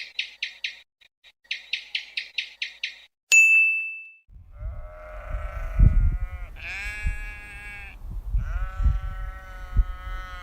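A bird chirping in quick runs of even notes, about five a second, then a single bell-like ding. Then a sheep bleats three times in long, wavering calls over a low rumble.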